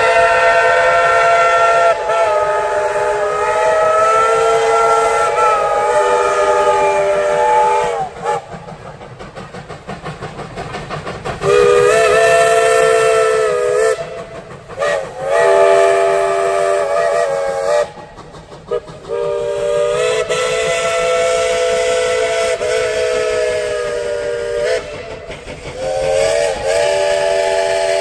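Steam locomotive's chime whistle blowing a series of blasts, mostly long, with one short one in the middle. In the gap between the first two blasts, the engine's exhaust chuffs rapidly, about four beats a second.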